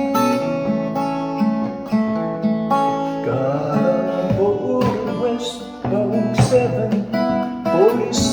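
Acoustic guitar playing chords in the key of A, with a second, wavering melodic line entering about three seconds in over the chords.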